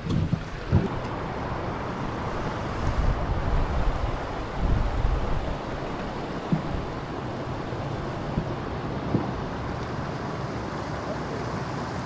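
Water rushing steadily over a beaver dam, with gusts of wind buffeting the microphone a few seconds in and a few light knocks.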